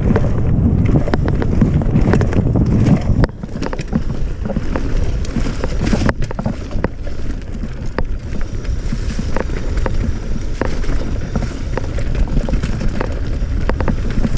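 Wind buffeting the microphone and knobby tyres rumbling over a leafy dirt trail as a cross-country mountain bike is ridden fast downhill, with frequent sharp clicks and clacks of the bike rattling over bumps. The wind rush drops sharply about three seconds in.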